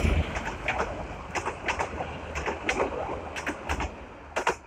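Passenger train coaches rolling past close by: a low rumble with irregular sharp clacks of wheels over rail joints, fading as the train pulls away, with one loud clack near the end.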